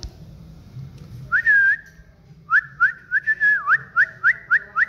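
A person whistling: one short held whistle about a second in, then a quick run of short rising whistles, about three to four a second.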